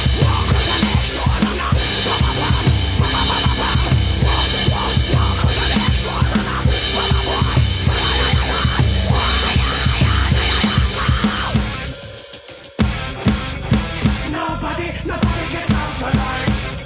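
NUX DM-210 electronic drum kit, heard direct from its module, playing a heavy rock beat with kick, snare, hi-hat and cymbals over the song's backing track. About twelve seconds in, the music drops out briefly before the drums come back in.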